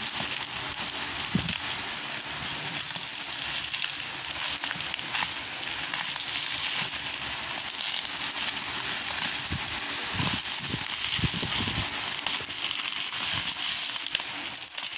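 Clear plastic wrap and bubble wrap crackling and crinkling as they are pulled off a cardboard box by hand, with a few soft bumps of handling.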